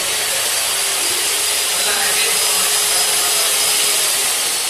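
Multi-spindle drilling machine running, its induction motor and gear head turning four drill bits together as they cut into the workpiece: a loud, steady grinding hiss with a faint steady whine.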